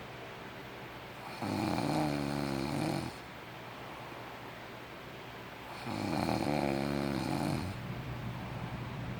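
A person snoring in their sleep: two long, pitched snores about four seconds apart.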